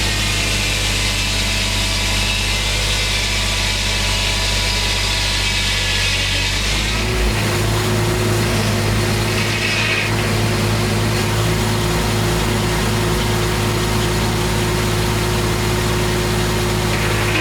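Homemade circular sawmill running, its engine holding a steady note that changes abruptly about seven seconds in.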